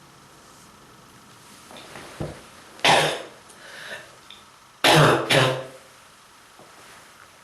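A person coughing hard: one cough about three seconds in, then a double cough about two seconds later, with a smaller throat sound before them. A chesty cough from strong bronchitis.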